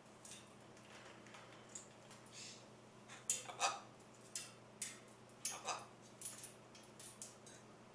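Blue-and-gold macaw making a series of short, sharp clicks and taps, irregularly spaced, starting about three seconds in.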